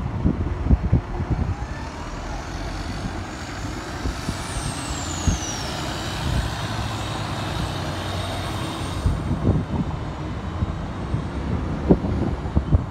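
City bus driving past close by, its engine running with a steady low rumble and a thin high whine that falls in pitch about four seconds in. Wind buffets the microphone with low thumps.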